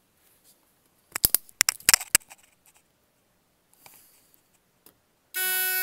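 A quick run of sharp clicks and clacks about a second in, then, near the end, a Simplex 4903-9236 electronic fire alarm horn starts sounding a steady horn tone as the Simplex 4002 panel goes into alarm.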